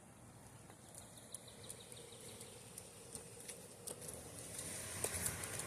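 Footsteps of a person walking a dog on a leash, with light irregular clicks and ticks that grow a little louder near the end.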